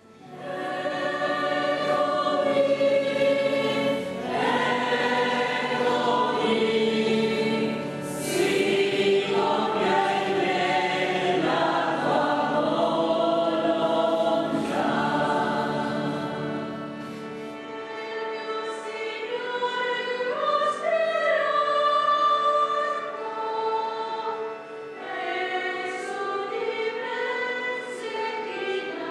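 Church choir singing a hymn, several voices holding long notes together; a low, steady accompaniment underneath drops out a little past halfway.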